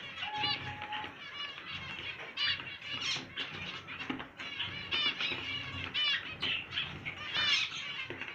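Many small cage birds chirping and chattering at once: a dense run of quick high calls.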